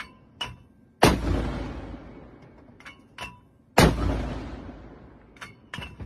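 Vehicle-mounted mortar firing twice, about three seconds apart. Each shot is a sharp blast followed by a long rumbling echo that dies away. Short sharp clicks come between the shots.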